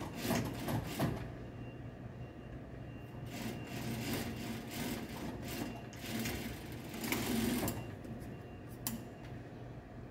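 Industrial lockstitch sewing machine stitching a seam in several short runs, its motor humming steadily between them.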